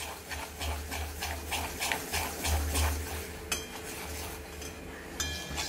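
Flat metal spoon stirring and scraping wheat flour roasting in ghee around a metal kadai, in quick even strokes several times a second. Two sharper metal clinks ring out in the second half.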